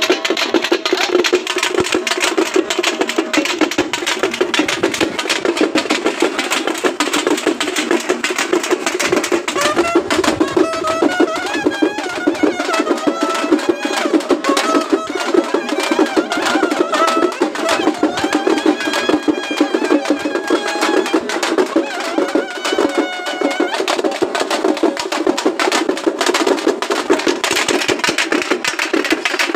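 Fast, continuous drumming, dense and unbroken, as played for a Moharram procession. A wavering high melody rides over the beat from about a third of the way in until near the end.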